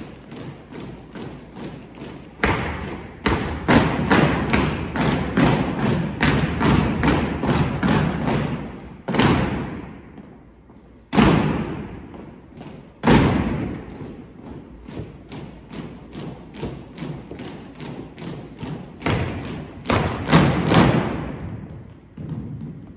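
Unarmed exhibition drill team striking in unison: a rhythm of stomps and body slaps, about two to three a second. Three single heavy hits near the middle echo around the gymnasium.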